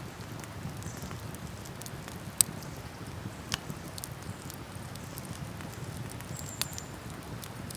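Wood campfire crackling, with a handful of sharp pops, the loudest about two and a half seconds in, over a steady low rushing background.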